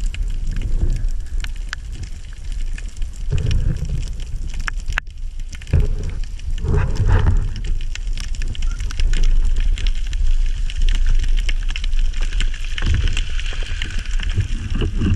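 Underwater sound through a camera housing: a low, muffled rush of moving water with a constant crackle of fine clicks, swelling louder a few times.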